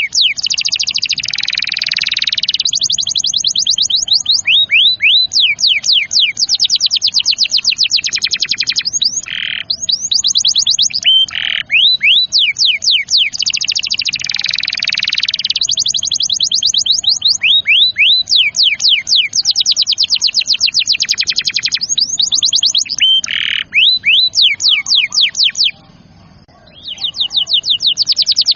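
Domestic canary singing in long rapid trills and rolls, runs of quick repeated sweeping notes that change pace from phrase to phrase, with a short break near the end.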